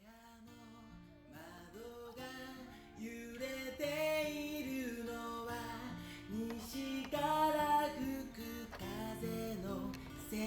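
Instrumental opening of a song: acoustic guitar with a melody line over it, fading in at the start.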